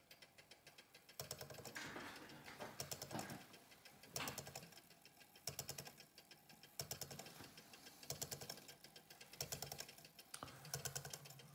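Freshly wound Paris clock movement running, its anchor escapement ticking faintly in short rattling bursts of quick clicks about every second and a quarter.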